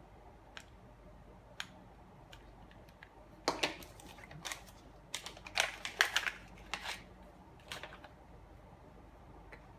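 Bristle strips being slid into the slots of a plastic brush end cap: scattered light clicks with a bunch of short scraping, rustling bursts in the middle.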